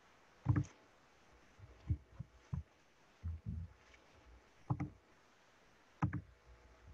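About six scattered dull thumps and taps, picked up through a computer microphone on a video call. They are the sounds of handling the computer and desk while the presenter tries to advance a stuck slide.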